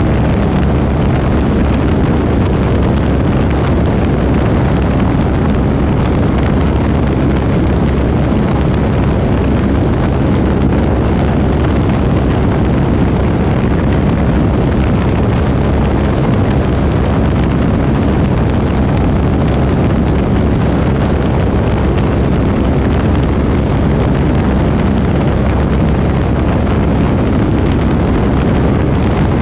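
Light aircraft's propeller engine running steadily at a constant loud level, with no change in pitch.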